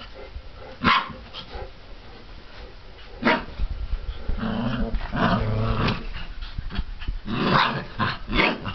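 Month-old mastiff puppies play-fighting: short sharp yaps about a second in, at about three seconds and near the end, and a longer low puppy growl in the middle.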